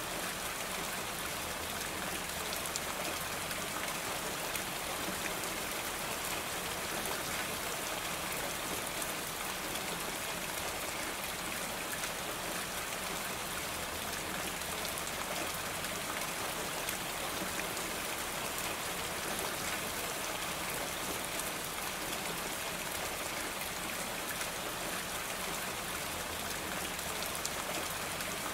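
Steady rain falling on a roof: an even hiss with a dense patter of drops that does not change.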